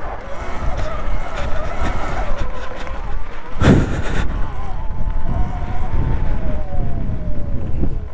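Sur-Ron electric dirt bike being ridden off-road: the motor and drive whine, rising and falling in pitch with the throttle, over a heavy rumble of wind on the microphone and rough ground. A single loud thump about three and a half seconds in.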